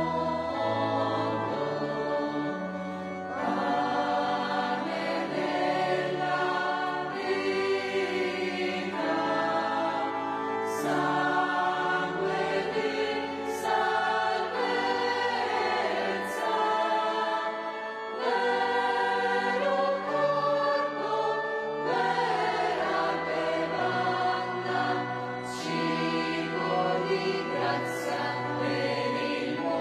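Mixed church choir of women's and men's voices singing a hymn in sustained chords.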